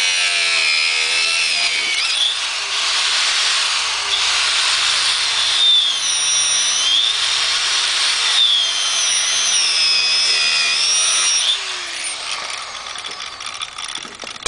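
A 4-inch angle grinder's cut-off wheel cutting through the steel bead band that has rusted onto the rim. It makes a loud, harsh grinding with a motor whine that dips and rises as the wheel bites. About eleven seconds in it eases to quieter grinding, and a short metallic clink rings out at the very end.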